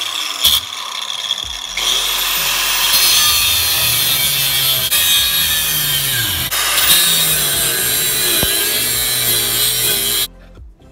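DeWalt angle grinder cutting into the steel rivets of a brake booster bracket. It is at full grind from about two seconds in, the motor's pitch sagging and recovering as it bites, then it shuts off shortly before the end.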